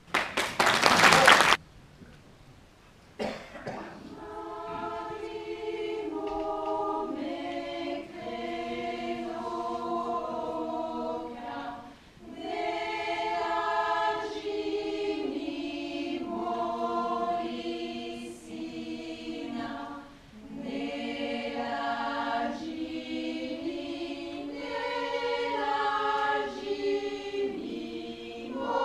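A loud burst of noise close to the microphone, then after a short pause a choir starts singing unaccompanied in several voice parts, in long phrases with brief breaks between them.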